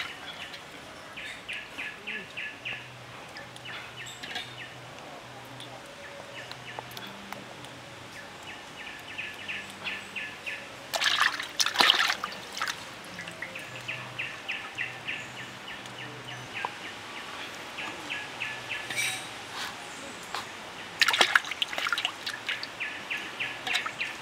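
Water splashing and trickling in a metal wok as hands wash small squid in it, loudest in two spells about halfway through and near the end. Rapid chirping calls repeat in short trains in the background throughout.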